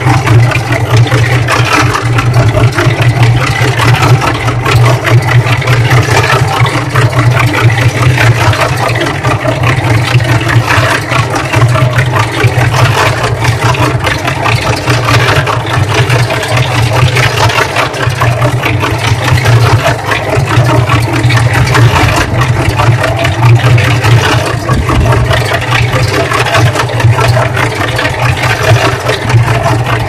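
Cement mixer running as a washing machine: a steady mechanical drone from its motor and drum drive, with wet clothes and soapy water sloshing and clattering as the drum turns.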